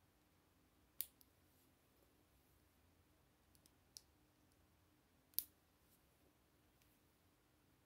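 Small plastic Lego bricks being pressed and snapped together by hand: a few short, sharp clicks, the loudest about a second in and again about five and a half seconds in, with fainter clicks between.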